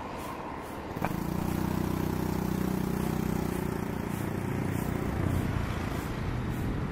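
KAI KT-1 Woongbi trainer's single Pratt & Whitney PT6A turboprop and propeller running as the aircraft rolls along the runway: a steady, low, pitched drone. It comes up suddenly about a second in and eases somewhat in the second half.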